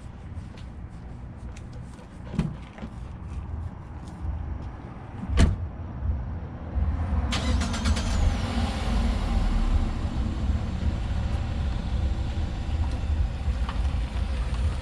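A single sharp thump about five seconds in, then a car's running noise comes up about two seconds later and stays steady and louder to the end.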